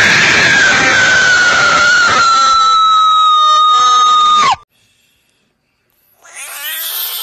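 A frog screaming when poked: one long, loud, shrill cry that sags slightly in pitch and cuts off sharply about four and a half seconds in. After a brief silence, a second frog starts screaming near the end.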